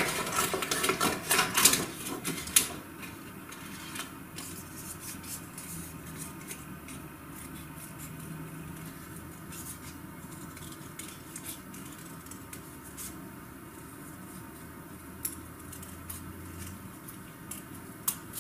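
Scissors cutting brown paper by hand: loud paper rustling and crisp snips for the first two to three seconds as a large sheet is handled and cut, then quieter, scattered snips as a small piece is trimmed.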